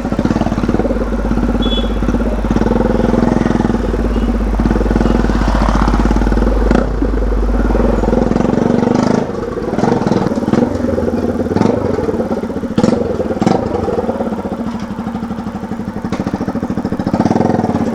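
Motorcycle engine running steadily, with a low rumble in the first half and a series of sharp knocks and clicks through the second half.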